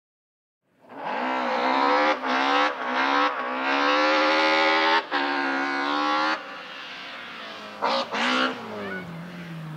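Rally car engine revving hard under acceleration, its pitch climbing and dropping back at a series of quick gear changes, then easing off to a lower, quieter drone with a couple of short blips near the end.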